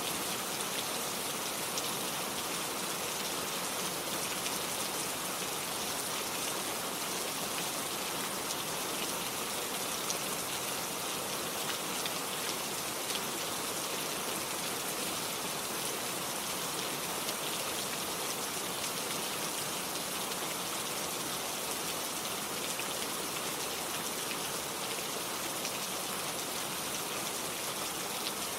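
Steady rain falling, an even hiss of many drops landing on a surface with small individual drop ticks.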